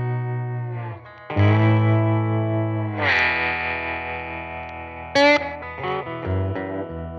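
Amplified electric lap steel guitar played with a steel bar: sustained, ringing chords with effects, the pitch bending as the bar slides, and new chords picked about a second in, at about three seconds and near five seconds.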